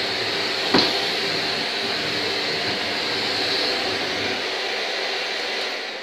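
Shark NV801UKT Duo Clean Lift-Away upright vacuum cleaner running steadily on a hard floor, with one sharp knock about a second in. Near the end it is switched off and its motor begins to wind down.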